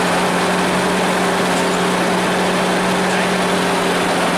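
Hino AK-3 bus engine running at a steady, unchanging pitch, with the hiss of road and wind noise around it.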